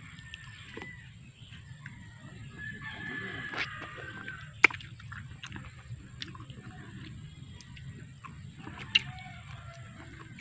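A rooster crowing once, a drawn-out call about two and a half seconds in, over a low steady rumble. Two sharp clicks, about a second after the crow and again near the end; the first is the loudest sound.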